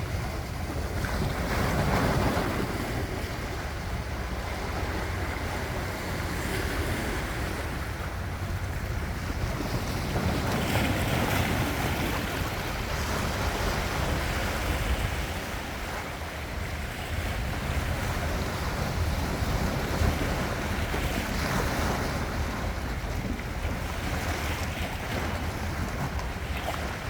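Ocean waves breaking and washing on the shore, swelling every few seconds, with wind rumbling on the microphone.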